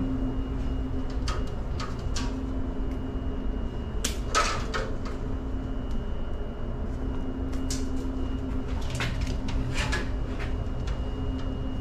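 Scattered clicks and metallic clatters of hand tools and wires being handled at an open breaker panel, the loudest clatter about four seconds in, over a steady low hum.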